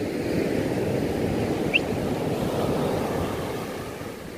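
Ocean surf breaking and washing up a sandy beach, a steady rush that fades toward the end, with wind on the microphone. A brief high chirp sounds about halfway through.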